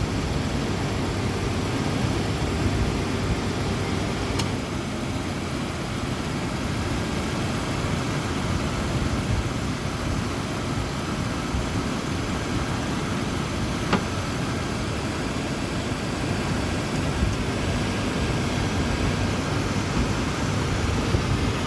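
Ford Ranger engine idling steadily with the air conditioning running while refrigerant is being charged into the AC system. There are two brief sharp clicks, about four and fourteen seconds in.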